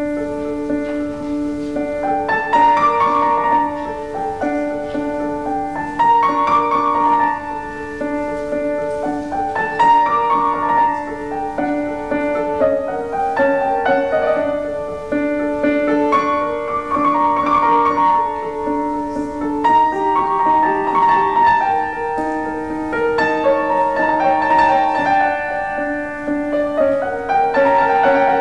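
Solo grand piano playing a slow piece, phrases of held notes and chords repeating every few seconds.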